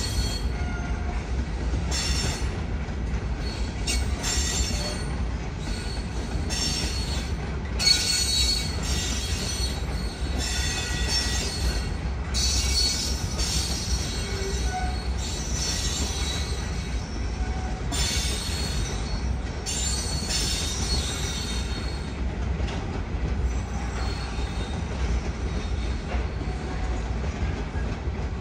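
Loaded hopper cars of a gravel train rolling past with a steady low rumble. The wheels squeal in repeated high-pitched spells for about the first twenty seconds, then ease off.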